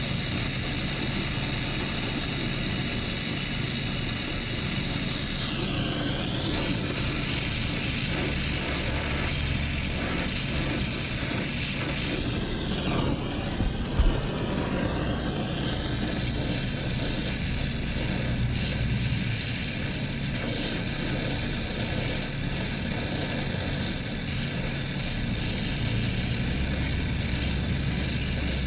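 Brazing torch hissing steadily over the steady hum of running machinery while a TXV is brazed into the refrigerant line with nitrogen flowing. One sharp knock about fourteen seconds in.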